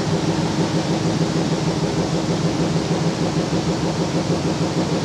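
A steady mechanical hum with a constant noisy rumble under it, unchanging in level.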